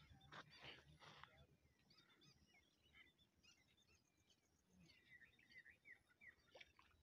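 Faint bird chirps and short whistles, busiest about five to six seconds in, over a faint high, evenly pulsed trill.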